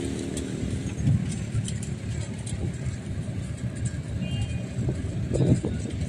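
Outdoor urban waterfront ambience: an uneven low rumble, with faint voices near the end.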